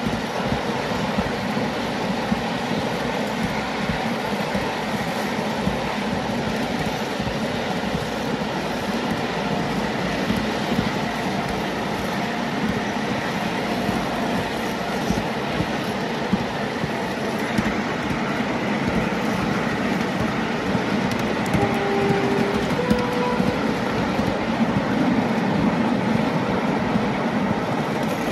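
Miniature-railway train hauled by a model Class 31 diesel locomotive running along the track: a steady rumble of wheels on rail with clickety-clack over the rail joints, and a few short wheel squeals a little before the end.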